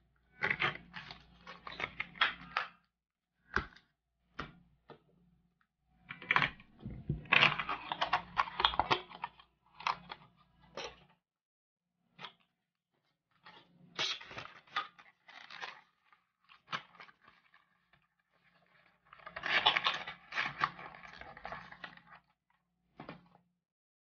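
Handling noise: irregular bursts of scraping, clicking and crinkling, in four clusters with short quiet gaps between them.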